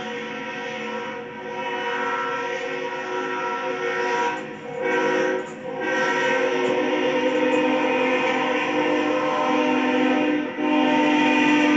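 Locomotive air horn sounding a chord of several steady tones in long blasts, broken briefly twice about halfway through and once more near the end.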